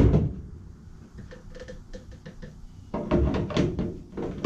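Knocks and clatter of parts being handled: a sharp knock at the start, a few light clicks, then a burst of clattering knocks about three seconds in and another near the end.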